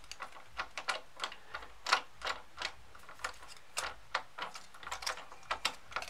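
Brass gate valve being opened by hand: irregular clicks and taps from the handwheel and stem as it is turned, about three a second, the loudest about two seconds in.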